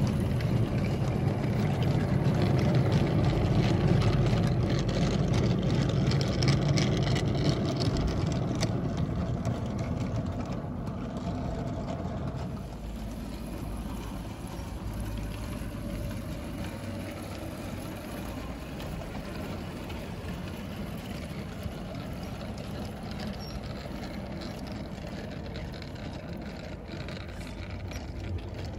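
Battery-powered 16mm-scale model locomotive and its long train rolling along garden-railway track: a steady rumble of wheels on rail with scattered clicks. It is loudest for the first dozen seconds as the train passes close, then drops to a lower, steady rumble.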